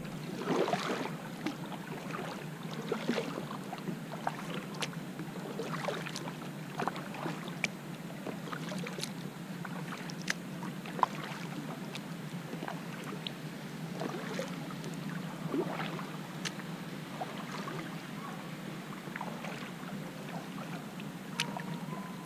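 Double-bladed kayak paddle dipping and pulling through calm lake water, stroke after stroke, with water trickling and dripping off the blades. Small ticks and splashes are scattered throughout, with one sharper tick about eleven seconds in.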